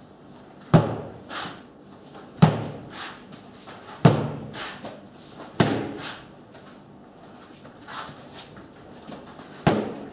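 Nunchaku striking the head of a freestanding rubber striking dummy: sharp smacks about every second and a half, four in a row, then one more near the end after a pause, with a softer swish after each hit.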